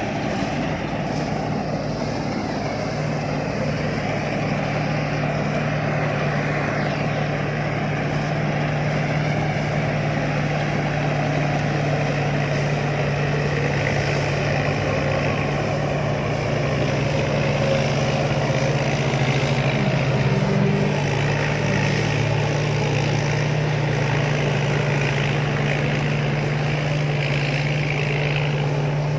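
Rice combine harvester's engine running steadily, a constant low hum with a noisy mechanical wash over it, growing slightly louder about two thirds of the way in.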